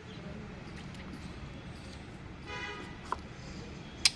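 A sharp click shortly before the end over a steady low background hum, with a brief high tone about halfway through and a fainter click just after it.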